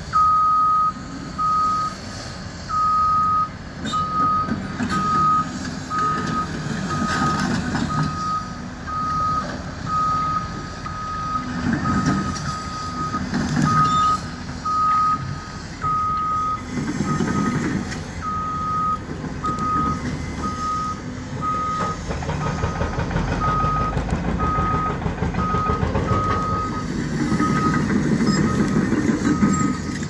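Backup alarm beeping steadily, about one beep a second, over the low running of diesel demolition machinery that swells louder several times.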